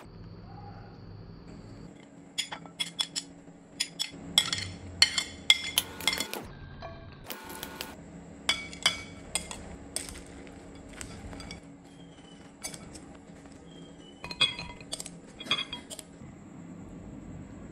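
A glass mixing bowl and dishes clinking and knocking in irregular clusters while fried tofu salad is mixed and tipped onto a ceramic plate. The clinks are busiest from about two to ten seconds in, with a few more around fifteen seconds.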